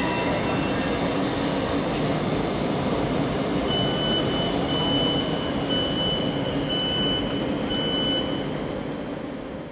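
A train running through the station with a steady rumble and rail noise, fading away near the end. In the middle, five short high electronic beeps sound about a second apart.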